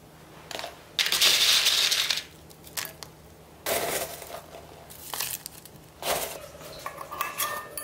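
Chopped chillies and green onion tipped into a glass mixing bowl of flour batter, in three dry rustling pours, the first the longest and loudest, followed by a few light clicks near the end.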